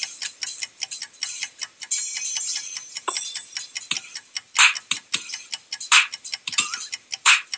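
Ticking clock sound effect: rapid, even ticks, about five a second, with three louder strikes in the second half.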